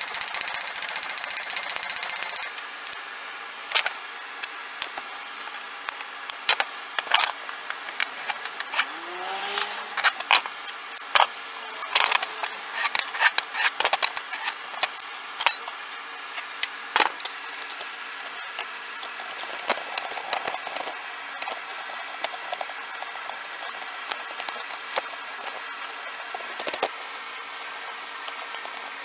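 Light, irregular hammer taps peening the brass rivet pins of a knife handle on an improvised anvil, coming in clusters with short pauses and thickest in the middle.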